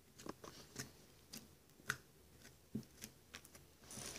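Homemade glue slime being pressed and squeezed by hand against a desktop, giving faint, irregular clicks and small pops about every half second.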